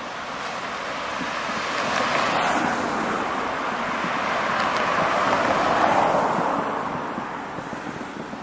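Road traffic passing close by: the noise of two vehicles swells and fades, peaking about two and a half seconds in and again near six seconds.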